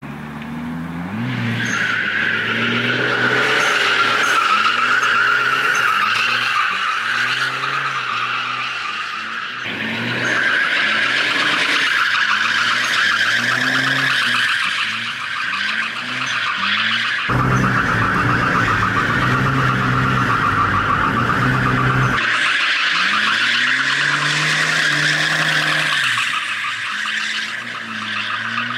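Volvo 740 drifting: tyres squealing almost without a break while the engine revs up and down under power. The sound changes abruptly a few times.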